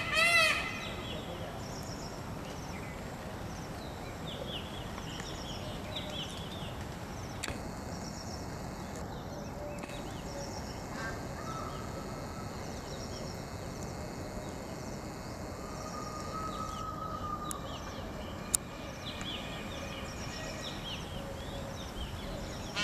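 Outdoor ambience: a steady even background noise with faint bird calls now and then, and a single sharp click late on.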